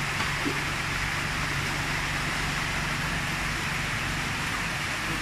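Steady rush of churning, aerated water in a koi pond, with a low steady hum underneath.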